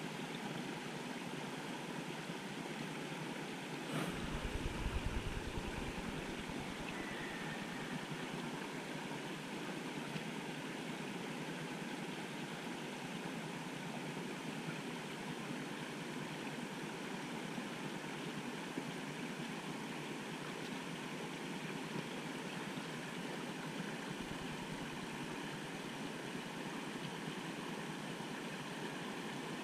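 Steady outdoor background hiss with no distinct source, broken by a single click about four seconds in, followed by a low rumble for a couple of seconds, and a fainter low rumble near the end.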